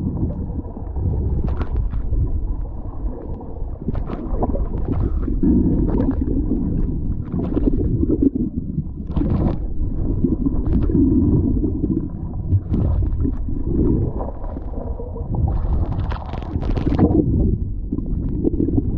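Muffled underwater rumble and gurgling of water moving around a submerged camera, dotted with scattered sharp clicks and knocks, with a louder gurgling burst about sixteen seconds in.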